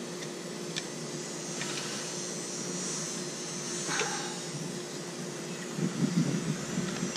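Steady machine hum with a fixed low tone. Over it come a few light clicks and a short knock about four seconds in as PVC pipe fittings are handled.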